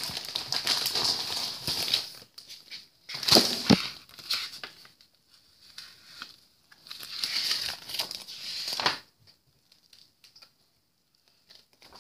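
Plastic toy packaging crinkling and rustling as it is handled and torn open: steady for about two seconds, then in short bursts, twice more, before it goes quiet for the last few seconds.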